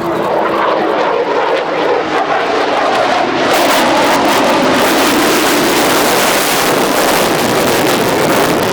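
Boeing F-15SG fighter jet making a fast, close pass, its twin engines' noise swelling into a loud rush about three seconds in and staying loud.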